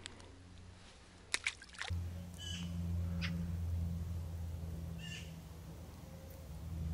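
A few sharp clicks about a second and a half in. Then a steady low rumble, with a bird giving short high calls three times.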